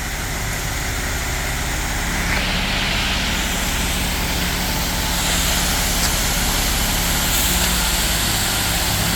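Concrete mixer truck's diesel engine running steadily during a pour, with a hiss that grows louder about two seconds in.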